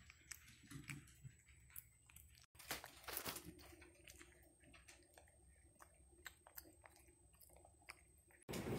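Near silence with faint scattered clicks and crackles; right at the end a louder, steady hiss cuts in abruptly.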